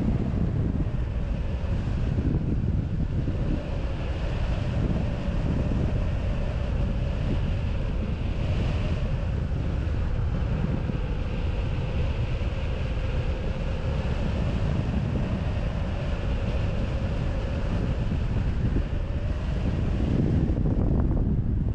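Airflow buffeting a wing-mounted camera's microphone during hang glider flight: a steady low rush of wind noise with a faint steady tone running through it.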